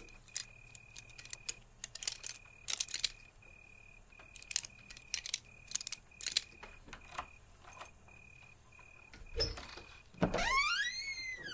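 Small metallic clicks and scrapes of a door lock being picked or fiddled with, under a faint high beep that pulses on and off evenly. Near the end comes a long creak that rises and then falls in pitch.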